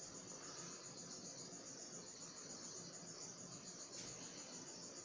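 Faint, steady, high-pitched chirring of insects such as crickets, with a single soft click about four seconds in.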